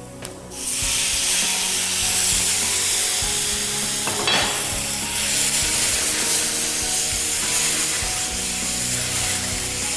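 White wine hitting a hot pan of frying onion and arborio rice sets off a sudden loud sizzle about half a second in, which keeps up steadily as the pan is stirred with a wooden spoon. There is a single sharp knock about four seconds in.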